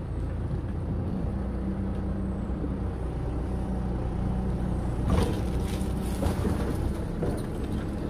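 Farm telehandler's diesel engine running steadily as its forks lift a concrete floor slat, with a few knocks about five to seven seconds in.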